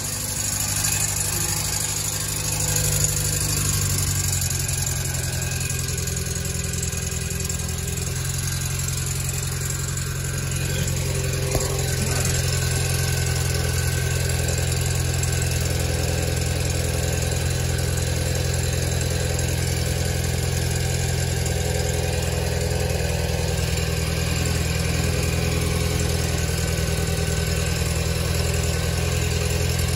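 2015 Hyundai Elantra's four-cylinder engine idling steadily with a freshly replaced catalytic converter, making a weird noise. It gets slightly louder about ten seconds in.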